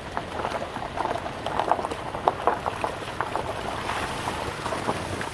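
Creek water gurgling and splashing, a quick irregular run of small splashes and bubbling sounds.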